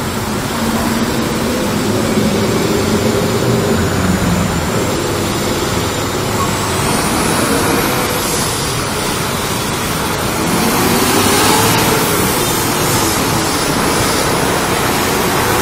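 Steady road traffic noise heard from a motorcycle moving slowly through dense city traffic, with the engine running under it. About ten seconds in, the engine's pitch rises and the sound grows louder as it picks up speed.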